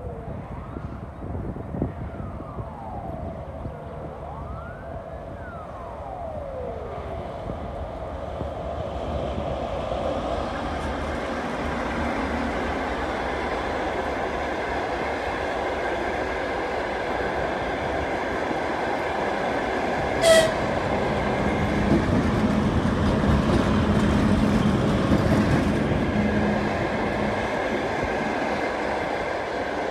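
A siren wails in the distance over the first several seconds. Then a TEP70 diesel locomotive, with its 16-cylinder diesel engine, and a rake of passenger coaches approach and pass, the engine and the wheels on the rails growing steadily louder as the coaches roll by. A brief, loud toot sounds about two-thirds of the way through.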